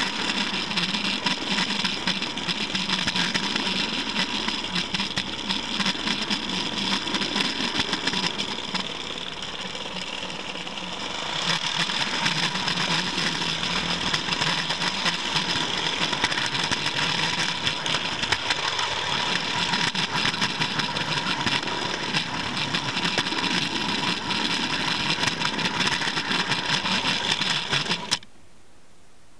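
Model railway camera wagon running along the track: a steady rolling and rattling of wheels on rail with a faint steady whine, ending suddenly near the end as it stops.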